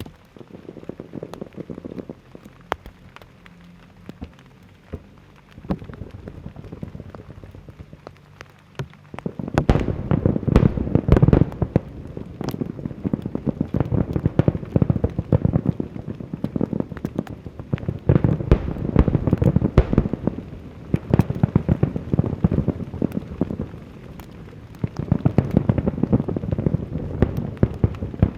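Aerial fireworks going off: a dense, continuous crackle of many small reports. It is lighter for the first nine seconds or so, then turns much louder and denser, with heavier bursts, about ten seconds in.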